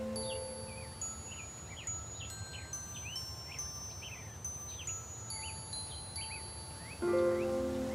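High, thin chime tones sounding one after another and ringing on, over repeated short chirps like birdsong and a low steady rumble. Lower instrumental music notes come back in near the end.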